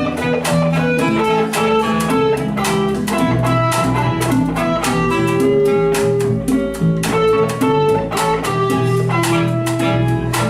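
Guitar-led band music, plucked guitar notes over a steady run of percussive hits.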